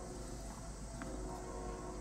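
A distant CSX locomotive horn sounding faintly as a chord of several steady notes, over a steady low rumble and a high insect buzz.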